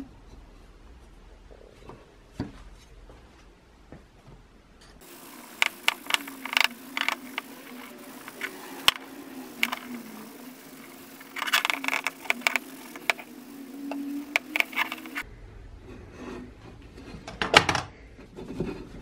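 Hand polishing of a brass blowtorch tank with a cloth: scrubbing and rubbing strokes with scattered clicks and scrapes, and a steady low hum under the middle stretch.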